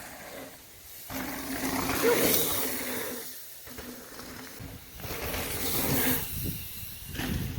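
Rushing wind and water noise aboard a sailing boat, swelling and fading in surges every couple of seconds, over a faint steady low hum.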